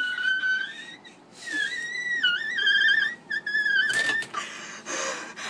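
A woman's high-pitched, drawn-out whimpering wails in distress, the pitch wavering and shaking, with a short break about a second in and a sharp noisy breath about four seconds in.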